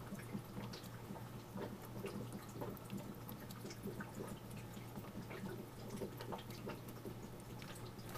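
Small water pump humming steadily while water trickles and drips through the coiled clear vinyl tubing of a homemade heating loop. The pump has just been switched on and is pushing water through the tubing for the first time.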